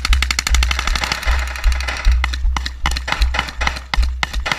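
Automatic rifle and machine-gun fire: a long rapid burst of shots for about two seconds, then shorter bursts and scattered single shots. Wind buffets the microphone with a low rumble.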